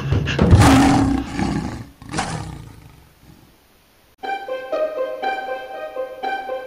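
A lion roars loudly for about a second and a half, then gives a shorter second roar that fades away. About four seconds in, light plucked-string music starts abruptly.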